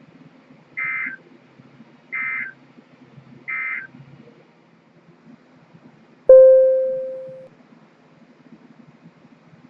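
Three short bursts of EAS SAME digital data, the end-of-message code that closes an emergency alert, each a fraction of a second long and spaced about 1.3 seconds apart. About six seconds in comes a single loud bell-like tone, struck once and fading out over a little more than a second.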